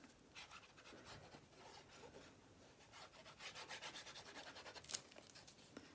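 Tombow liquid glue's applicator tip rubbing and scratching faintly across cardstock as glue lines are drawn, growing a little louder past the middle, with one sharp click about five seconds in.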